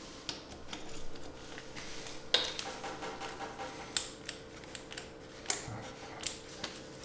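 Socket wrench on an extension loosening a Loctite-coated bracket bolt on a car engine: scattered metallic clicks and clinks of the tool, the sharpest about two and a half seconds in, over a faint steady hum.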